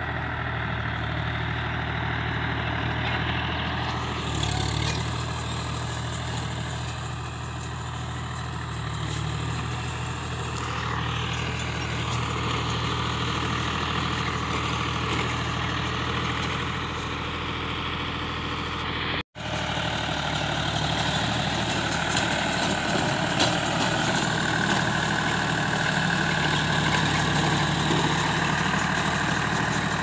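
John Deere 5103's three-cylinder diesel engine running steadily under load as it pulls and drives a round baler through loose straw, with the baler's machinery running alongside. The sound drops out for a moment about two-thirds of the way through and comes back slightly louder.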